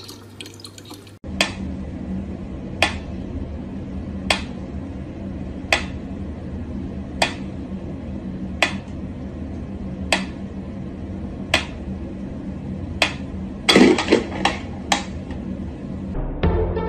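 Mechanical pyramid metronome ticking slowly and evenly, one sharp tick about every second and a half, over a steady low hum. About 14 s in there is a brief flurry of several louder, irregular clicks and knocks.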